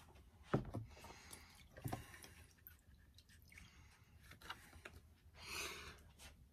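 Faint water dripping and splashing in a plastic tub as wet sandpaper is dipped and handled, with two light knocks about half a second and two seconds in and a short hiss near the end.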